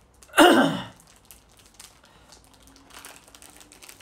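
Plastic bags of Lego parts crinkling faintly as they are handled, with a short, loud breathy voice sound about half a second in.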